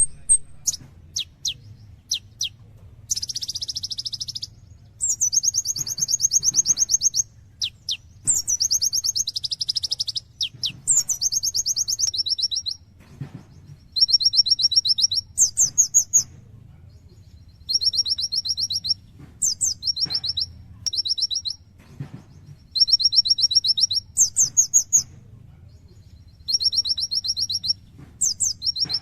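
A sunbird of the kind Indonesian keepers call kolibri ninja, singing vigorously in repeated bursts of fast, high trills, each phrase lasting a second or two, mixed with sharp high chips and short pauses between phrases.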